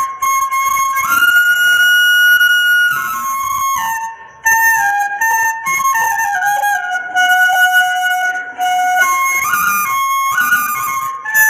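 Bansuri bamboo flute playing a melody of held notes that slide from one pitch to the next, with a short break about four seconds in.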